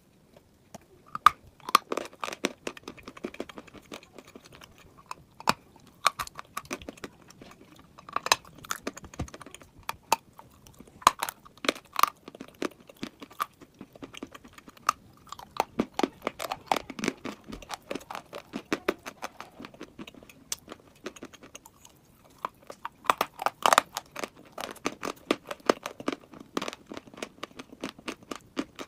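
Bites and chewing of a big chunk of dry chalk: crisp, dry crunches in clusters of rapid crackles, with short pauses between mouthfuls.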